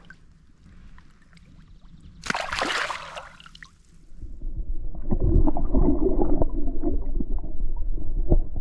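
Water splashing: one short splash a little over two seconds in, then louder, continuous sloshing and gurgling close to the microphone from about four seconds in.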